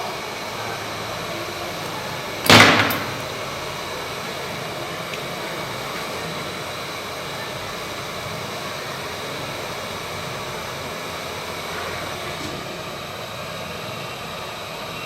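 Hot air rework station blowing a steady hiss of hot air over a phone mainboard to preheat the solder pads. About two and a half seconds in, a short loud burst of noise rises over it and fades within half a second.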